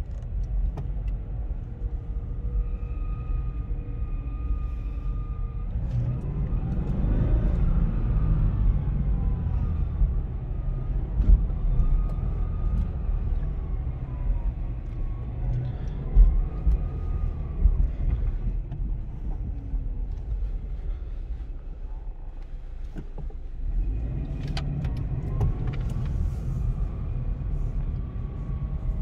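2016 Scion FR-S's flat-four boxer engine heard from inside the cabin while driving, over a steady low road rumble. The engine note rises in pitch under acceleration about six seconds in, eases off, and climbs again near the end.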